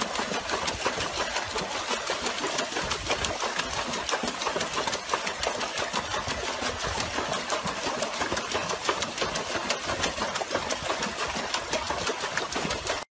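Water splashing and churning in a plastic tub as a dog paddles rapidly with its front legs: a steady, dense run of quick splashes.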